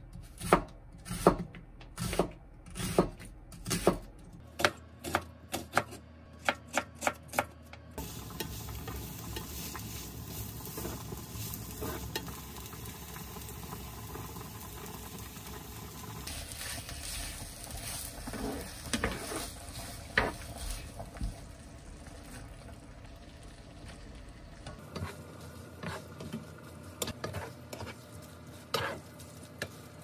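A knife chopping an onion on a plastic cutting board: a run of sharp taps, quicker near the end of the chopping. After about eight seconds this gives way to onions and tomato sauce sizzling steadily in a frying pan, stirred and scraped with a wooden spatula, with light knocks of the spatula near the end.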